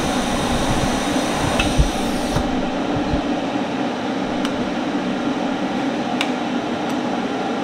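TIG welding arc on steel plates, a steady hiss over a constant hum. The arc's high hiss stops about two and a half seconds in, leaving the steady hum with a few light clicks.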